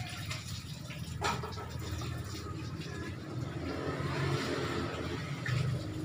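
Caged ringneck (Barbary) dove, a puter in breeding condition, giving its low courtship coo to call a female, over a steady low background hum.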